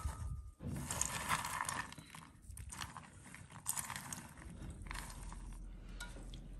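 Shelled walnut pieces rustling and clicking against each other and the enamel bowl in short, uneven bursts as hands sift through them, picking out bits of shell.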